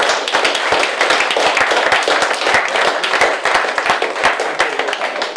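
Small audience applauding, many hands clapping in a dense, irregular patter.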